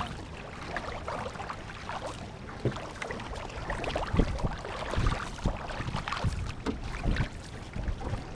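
Wooden paddles of a multi-person war canoe stroking through calm water: repeated dips and splashes, about one to two a second and not quite even, over the steady wash of water along the hull.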